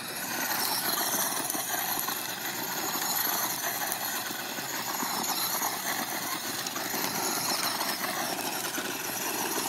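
Traxxas short-course RC truck spinning doughnuts on gravel: its motor running hard with a high whine over the hiss and crunch of tyres spraying loose gravel.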